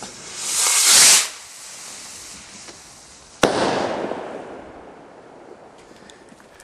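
A Ring Leader firework rocket hissing up on launch for about a second, then, about two seconds later, a single sharp bang as it bursts, with the report rolling away for a second or two and a few faint crackles after.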